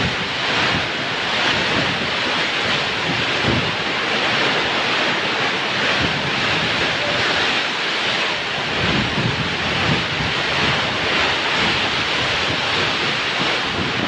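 Torrential tropical downpour with strong wind: a dense, steady hiss of heavy rain, with gusts of wind buffeting the microphone, most of all in the second half.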